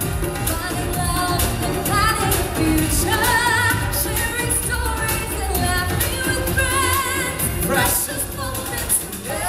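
Live pop song with singers on handheld microphones over backing music with a steady beat, the voices wavering with vibrato.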